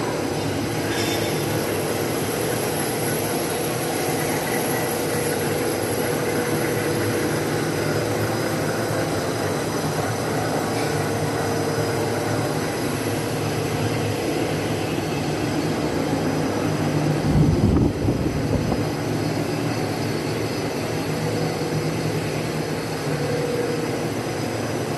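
Wintech WT-65/90/65X1850 three-layer stretch film cast extrusion line running: a steady mechanical drone with several constant hums and a few high whines from its motors and rollers. A brief low thump about seventeen seconds in.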